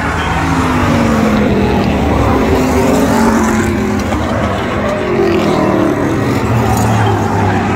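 A pack of racing pickup trucks with their engines running hard as they pass. Several engine notes overlap, each falling in pitch as a truck goes by.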